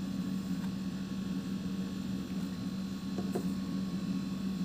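Steady low electrical hum of the room background, with a faint light tap about three seconds in.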